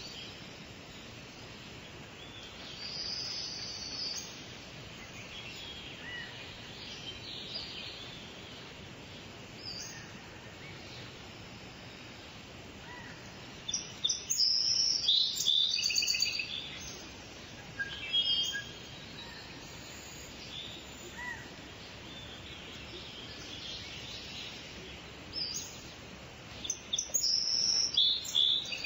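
Outdoor ambience with several birds calling: scattered high chirps and short trills over a steady background hiss, with a louder burst of chattering calls about halfway through and another near the end.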